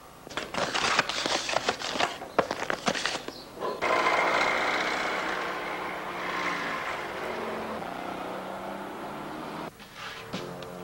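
Scratchy rustling and scraping of paper and pen for the first few seconds. Then, about four seconds in, a steady wash of street traffic noise starts suddenly, fades slowly and cuts off near the end.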